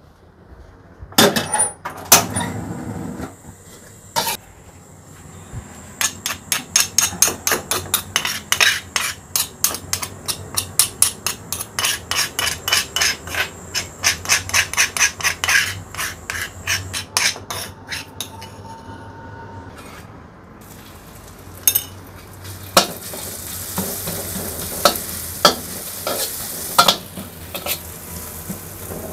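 Chillies and spices pounded and ground with a pestle in a mortar (ulekan and cobek): a few heavy knocks, then a long run of quick regular strokes, about two or three a second. Later the stroking gives way to a steady sizzle of frying in a pan, with occasional clinks of utensils.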